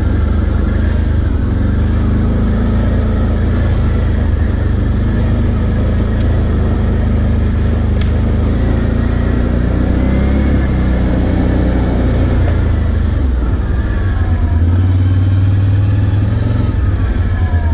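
Can-Am Outlander 650 ATV's Rotax V-twin engine running while riding along a dirt trail, its note shifting with the throttle and growing louder about fourteen seconds in.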